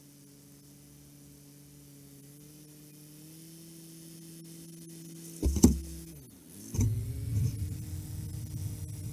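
International 745 XL tractor's four-cylinder diesel engine running steadily, its speed rising a little about three seconds in. About halfway through come two loud knocks, and after them the engine is heard louder, with a rougher rumble.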